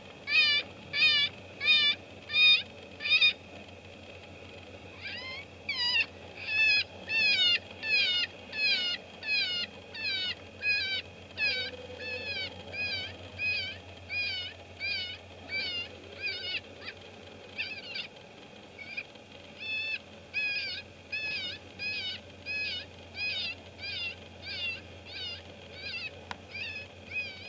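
FoxPro electronic predator caller playing a prey distress call: high squealing cries repeated about twice a second, each bending in pitch, with a short break a few seconds in.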